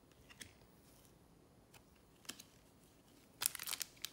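Trading cards handled with a few faint clicks, then the crackly crinkling of a trading card pack's wrapper as it is picked up near the end.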